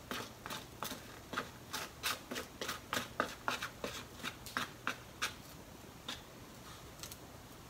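Wooden chopsticks scraping and tapping sticky natto out of its pack onto a slice of bread: a run of quick scrapes, about three a second for some five seconds, then two single ones near the end.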